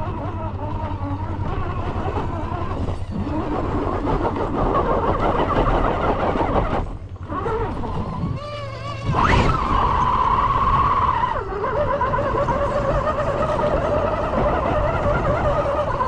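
Electric motor and gear drivetrain of a 1/6-scale Axial SCX6 RC crawler whining as it climbs over rock, the pitch wavering and dipping as the throttle is eased and reapplied. About nine seconds in, the whine rises quickly and then holds steady.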